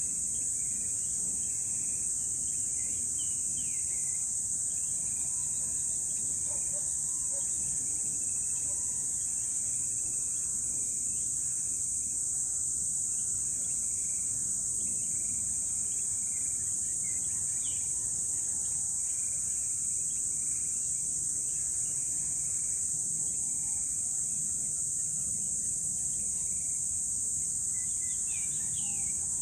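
A steady, high-pitched insect chorus trilling without a break, with scattered short bird chirps and calls over it.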